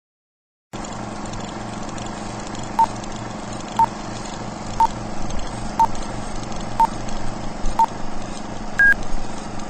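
Film-leader countdown sound effect: steady hiss and hum with a short beep once a second, six in a row, then a higher beep near the end. It starts about a second in after silence.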